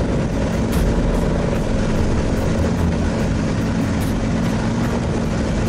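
Sherp amphibious all-terrain vehicle's diesel engine running steadily as it drives across the ice, an even drone with a constant hum.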